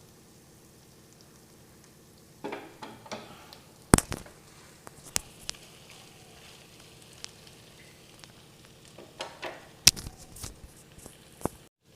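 Pepper chicken masala sizzling faintly in a kadai as it is stirred, with a few short scraping passes and two sharp knocks, about four seconds in and near the end.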